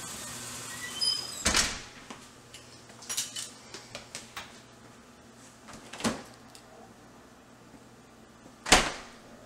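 Household doors being worked: a faint squeak and a couple of knocks as a door is opened, then scattered small clicks and knocks, and near the end a single sharp thump from a refrigerator door.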